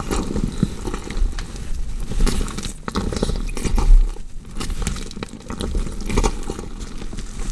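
Horror foley of a body being dissected: a dense, irregular run of crackling, scraping and tearing sounds of cut flesh, with no pause.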